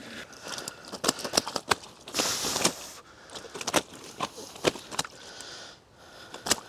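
Fishing gear being handled at ground level: a run of sharp clicks and knocks with rustling, and a short hissing rustle about two seconds in.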